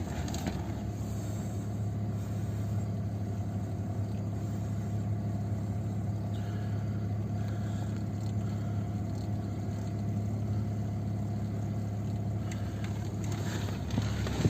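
BMW E46 325ci's 2.5-litre inline-six engine idling steadily.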